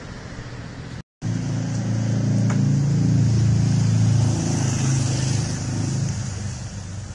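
Road traffic with motorbikes and cars passing on a city street. After a brief break about a second in, a passing engine grows louder, then eases off after about four seconds.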